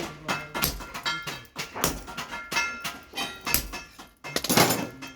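Hammer blows on steel at the anvil, irregular, about two a second, each with a short metallic ring; near the end a louder burst of hissing noise.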